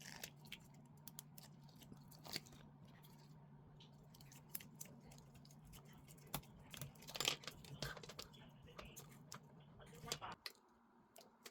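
Small clicks, taps and rustles of hands handling the drone's small plastic and metal parts during reassembly, the loudest about 7 seconds in, over a steady low hum that cuts off shortly before the end.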